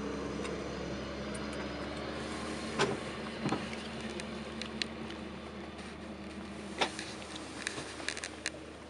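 Car driving on a highway heard from inside the cabin: steady engine and road noise, with a low hum that fades about two seconds in. A handful of sharp clicks and ticks come in the middle and near the end.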